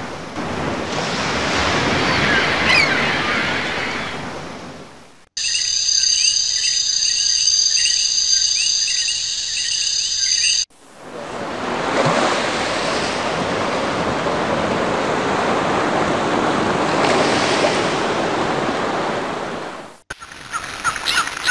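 A string of nature sound-effect clips joined by abrupt cuts. Surf washes in and out with a few bird chirps, then cuts to about five seconds of high, steady chirping and whistling tones. The surf swells again and fades, and near the end it cuts to short, quickly repeated chirps.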